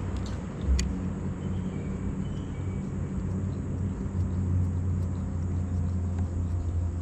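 Boat motor running with a steady low hum, and a single sharp click just under a second in.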